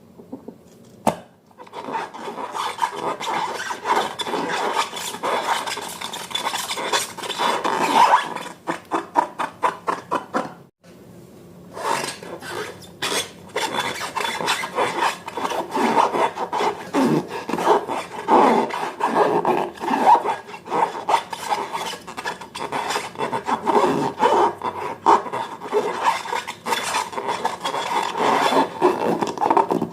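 Slime being mixed and worked, a continuous sticky rubbing and scraping full of small crackling clicks, with a brief pause about ten seconds in.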